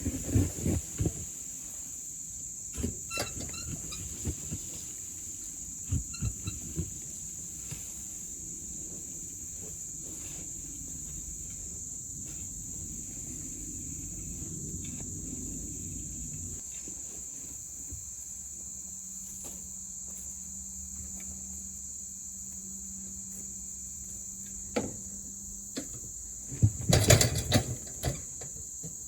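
Crickets trilling steadily in a high, even band, with a low rumble that stops about halfway through. Scattered knocks come near the start and in a louder cluster near the end.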